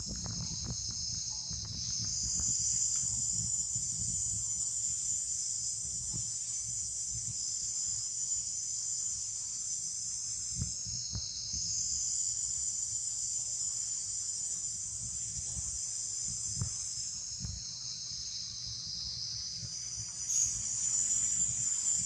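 A steady high-pitched chorus of insects buzzing. Its pitch dips briefly about eleven seconds in and again a few seconds before the end, over a low rumble with a few soft knocks.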